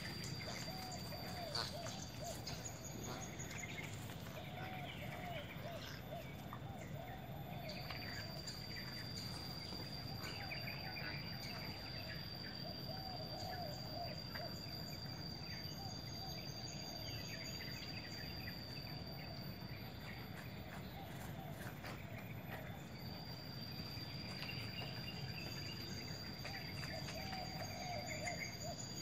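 Outdoor ambience of birds chirping and calling, with a steady high-pitched insect drone that cuts out twice and comes back, over a low steady background rumble.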